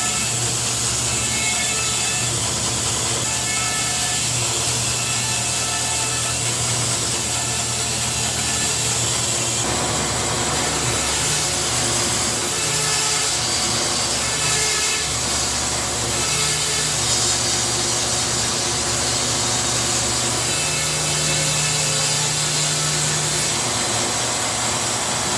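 Thickness planer running steadily while feeding wet oak rib stock through its cutterhead. It makes a constant loud whirring hiss, and its low hum shifts pitch a few times as boards go through.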